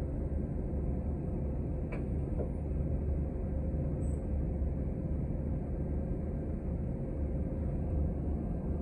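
Inside a city bus in service: a steady low rumble of the engine and road, with a faint steady hum over it and a single light click about two seconds in.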